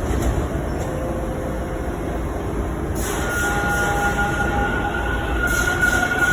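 TTC T1 subway train running through the station with a steady rumble. About three seconds in, a high steady squeal joins and holds.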